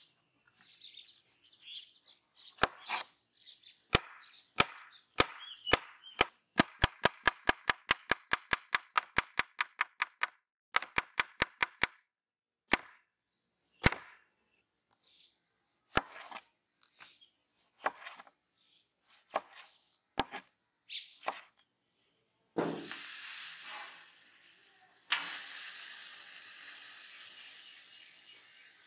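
Chef's knife chopping a cucumber on a wooden cutting board: single cuts, then a quick even run of chops, then slower single cuts again. Near the end a flat griddle sizzles as fat goes onto the hot surface; the sizzle starts suddenly and starts again louder a few seconds later.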